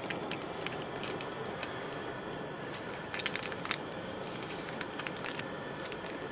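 A paper packet of instant coffee being poured into silicone cups, its crinkles and light ticks sounding over a steady hiss, with a cluster of louder crinkles a little after three seconds in. The hiss cuts off suddenly at the end.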